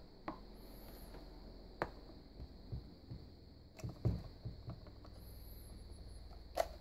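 Scattered light clicks and knocks of hard plastic parts being handled on a Bostitch QuietSharp Glow electric pencil sharpener while it is opened up to get at the blade; a quick cluster of knocks about four seconds in and a sharper click near the end. The motor is not running.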